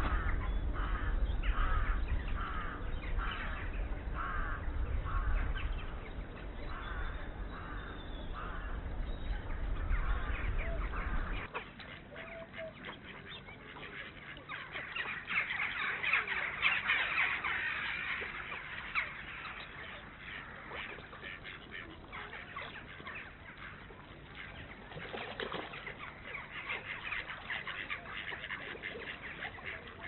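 Waterfowl calling outdoors: for about the first ten seconds a run of evenly spaced calls, about one and a half a second, over a low rumble. After an abrupt change, ducks quack and chatter in bouts, busiest in the middle and again near the end.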